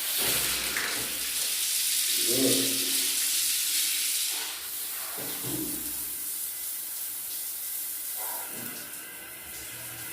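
Water running hard from an open tap under strong pressure from a newly installed pressure pump, loud for the first four seconds or so, then quieter.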